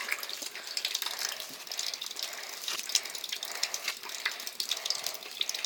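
Crackling, rustling handling noise from a finger rubbing and pressing over a phone's microphone: a steady rush dotted with many irregular clicks.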